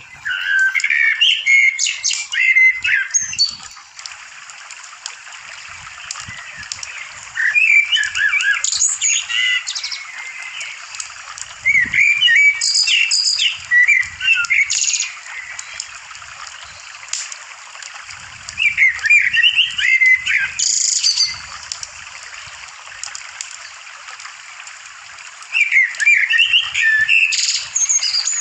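A songbird singing in short, rapid warbling phrases. It sings five bursts a few seconds apart over a steady hiss of running water.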